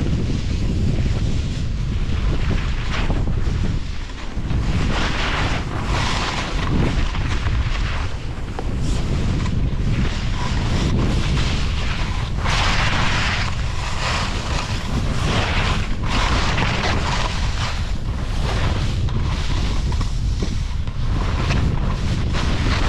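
Wind buffeting the microphone with a heavy low rumble while skiing, and skis hissing through powder snow, the hiss surging and fading every second or two.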